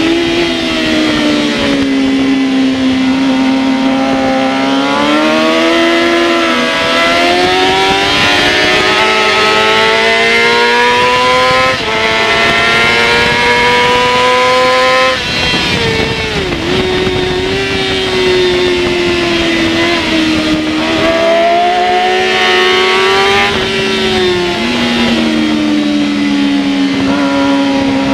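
Yamaha R6 inline-four race engine heard from on board at high revs, rising in pitch and stepping down at each upshift. About halfway through the throttle shuts off suddenly and the revs fall. It then pulls up again with more shifts. A steady rush of wind noise sits under the engine throughout.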